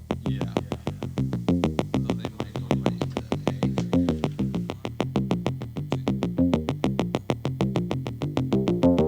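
Electronic background music: a quick, steady ticking beat over a low, stepping synth melody.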